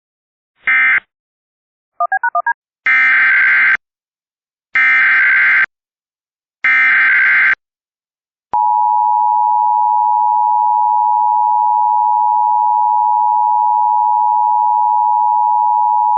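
Emergency Alert System tones: a last short digital data burst closing the previous alert, a brief warble, then three longer data bursts (the next alert's header), followed about 8.5 seconds in by the steady two-note attention signal (853 and 960 Hz) held for about eight seconds.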